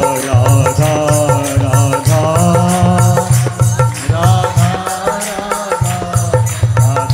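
Devotional Hindu kirtan music: a melody line over a steady percussion beat and a pulsing bass.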